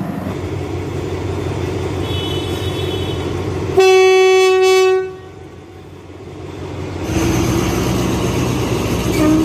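Steady road traffic noise, then a Thai railway diesel locomotive's air horn sounds one loud blast of about a second that cuts off abruptly. The approaching train's rumble builds near the end, and a second horn blast starts as it closes in.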